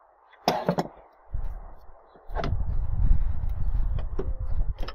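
Metal clinks and knocks as a steel camshaft locking tool is offered up onto the camshafts of a BMW S63TU V8, with a low rumbling noise from about two seconds in.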